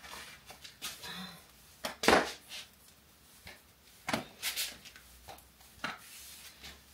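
Scattered sharp knocks, taps and rustling from a person handling and pulling at the leggings she is wearing, with one louder knock about two seconds in.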